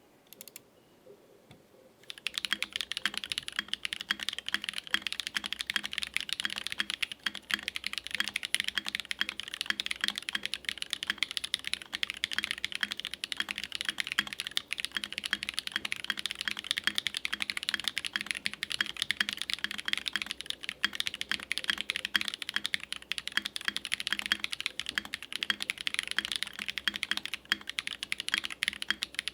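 Steady, fast typing on a custom 65% mechanical keyboard, a gasket-mounted polycarbonate Think6.5 V2 with an FR4 plate and lubed and filmed Holy Panda tactile switches, starting about two seconds in as a continuous stream of key clacks.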